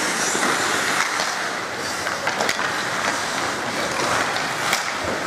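Hockey skate blades scraping and hissing on the ice, with a few sharp clacks of sticks.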